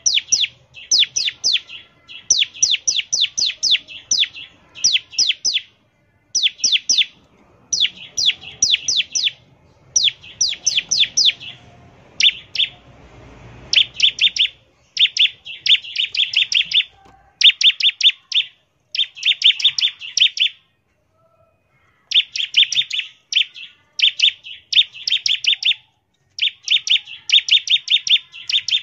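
Bar-winged prinia (ciblek) singing its rattling 'ngebren' song: fast bursts of sharp, high chipping notes, each burst about a second long with short gaps between, and one longer pause a little past the middle.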